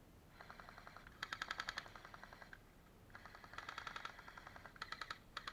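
Airsoft electric rifles firing on full auto: several bursts of rapid, evenly spaced clicks with short gaps between them.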